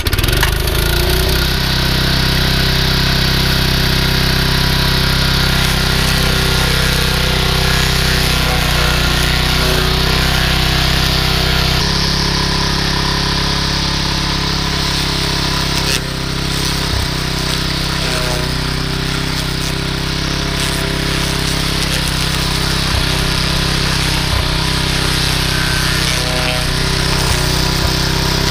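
Small single-cylinder lawnmower engine on a homemade rotary mower, running steadily while its blade cuts down potato tops.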